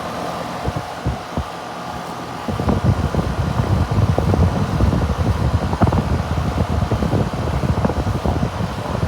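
Steady mechanical hum, joined from about two and a half seconds in by a louder, crackling low rumble like wind or handling on the microphone.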